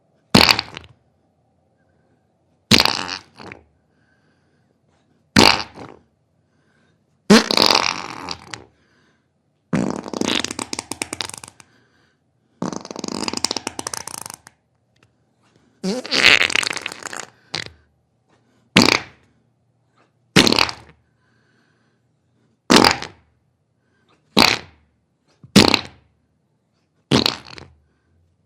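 A series of about fourteen separate fart sounds, one after another with silent gaps between them. Some are short, while several are long and drawn out with a rapid flutter, lasting up to about two seconds.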